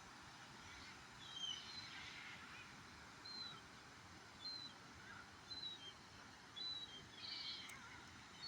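A bird giving short, high chirps, repeated about once a second, over a faint steady background hiss.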